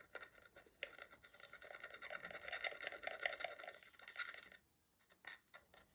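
Faint, rapid scraping as leftover display adhesive is cleared off a phone's frame. It starts about a second in and stops after about four seconds, with a few light clicks before and after.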